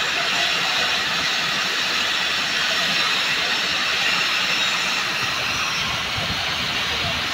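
Oxy-fuel cutting torch on a clamp-on pipe cutting machine, its oxygen jet burning through a steel pipe wall with a steady hiss.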